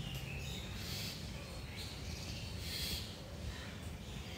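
Steady low rumble of outdoor background noise, with faint short high chirps a couple of times.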